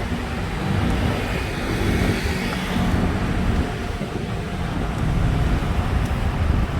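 Busy road traffic: cars and other motor vehicles passing with a steady low rumble.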